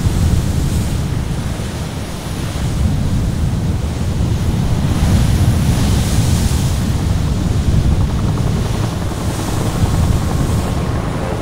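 Heavy storm surf breaking against a pier: a continuous low rumble of churning water, with several waves crashing in turn, each a surge of hiss, and wind noise on the microphone.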